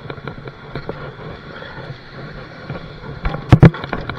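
Rusty bicycle being hauled up over a railing: scattered rattles and knocks as it scrapes up, then two loud knocks close together about three and a half seconds in as it strikes the railing.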